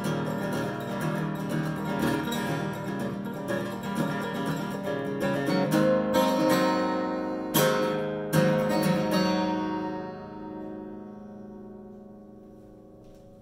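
Martin D-18 acoustic guitar with Stringjoy strings, strummed with a heavy D'Andrea pick that gives a clicky attack. Steady strumming runs for about six seconds, then comes a handful of hard, separate strums. The last one is about eight and a half seconds in, and that final chord rings out and fades slowly.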